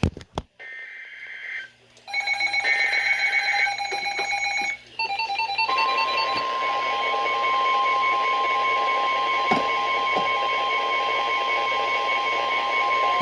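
Emergency Alert System SAME header on NOAA Weather Radio announcing a tornado warning: short bursts of screechy two-tone data. A few seconds later comes the steady 1050 Hz NOAA Weather Radio warning alarm tone, with electronic alert beeping around it.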